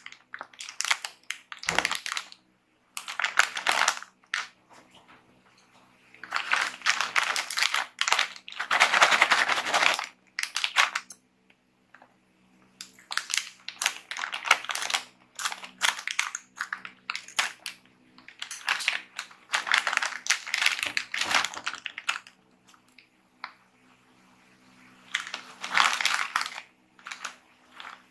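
Plastic snack bag crinkling and rustling in close-up as it is handled, in bursts. Around the middle come short snips of scissors cutting the bag open, and near the end the bag crackles as it is pulled open.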